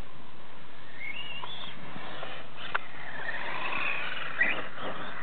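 Traxxas E-Revo RC truck's Castle 1717 brushless motor whining, rising and falling in pitch with the throttle, with two sharp clicks in the second half.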